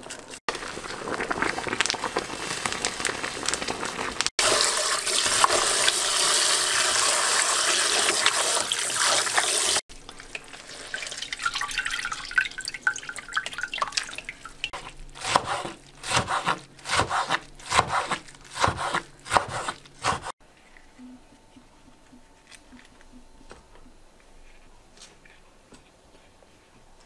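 Cold tap water running hard into a kitchen sink, then irregular splashing as hands rinse blanched napa cabbage leaves in a plastic colander. After about twenty seconds it drops to a much quieter low background.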